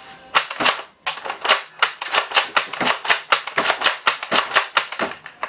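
A quick, even run of sharp plastic clicks, about three a second, from a Nerf Vortex Vigilon disc blaster being primed and fired.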